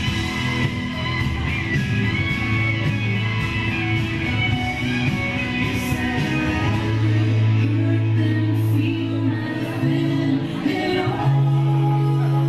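A song with singing and guitar, playing steadily as dance music.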